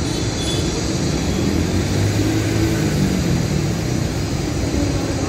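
Steady low rumbling outdoor background noise. A faint engine hum comes in about two seconds in and fades by about three and a half seconds.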